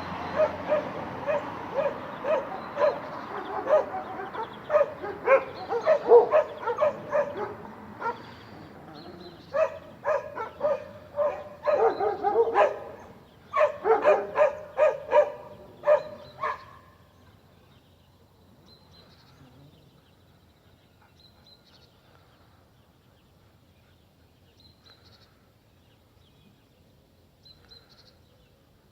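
Dog barking repeatedly in a steady string of sharp barks, about two a second, for most of the first two-thirds; the barking stops about 17 seconds in, leaving only faint background sound.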